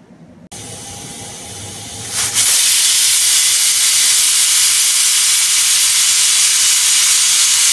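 Stovetop pressure cooker's first whistle: steam hissing out past the weighted valve. It starts softly about half a second in and becomes a loud, steady rush about two seconds in. The sound marks the cooker reaching full pressure.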